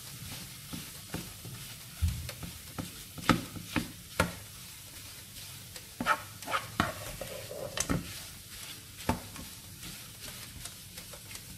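Mashed sweet potato frying in ghee in a nonstick pan, pressed and stirred with a spatula: a soft sizzle under irregular scrapes and taps of the spatula against the pan.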